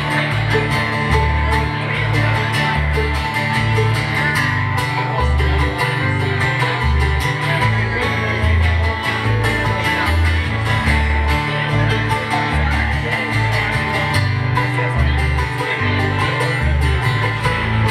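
Live acoustic string band playing an instrumental passage: a banjo picking over strummed acoustic guitar, with low bass notes moving on a steady beat.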